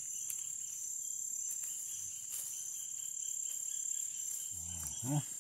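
Steady, high-pitched chorus of insects, a continuous shrill drone, with a person's short voiced utterance near the end.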